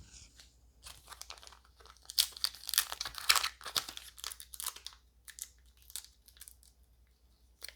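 Trading card booster pack wrapper being crinkled and torn open, a quick run of sharp crackles, loudest between about one and five seconds in, then fainter rustles.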